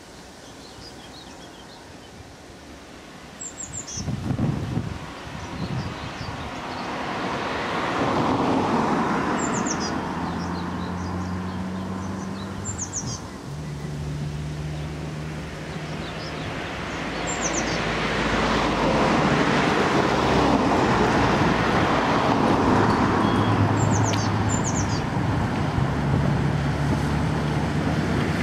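Road traffic passing and a German class 50 steam locomotive drawing near, the noise building to its loudest over the last ten seconds. A small bird chirps briefly every few seconds.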